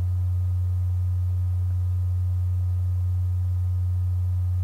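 Steady low electrical hum, one unchanging tone with nothing else standing out over it.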